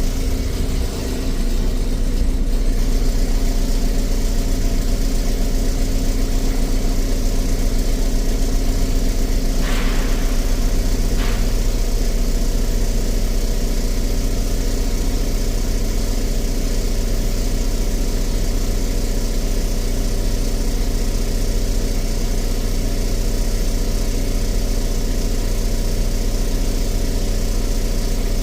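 Volvo D7E 7.1-litre diesel engine idling steadily. About ten seconds in there is a short hiss followed by a click.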